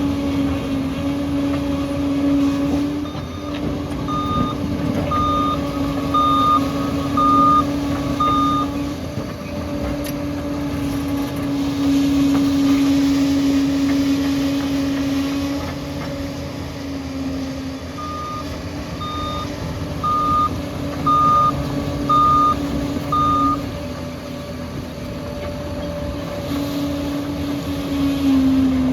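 Liebherr bulldozer's diesel engine running steadily, with its reversing alarm beeping about once a second in two runs of six beeps while the machine backs up.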